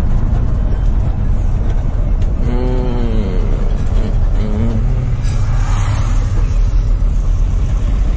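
Steady low rumble of a Ford truck's engine and road noise inside the cab while driving. About two and a half seconds in, a voice gives a short hum that rises and falls in pitch, with a shorter one about a second later, and a brief hiss follows near six seconds.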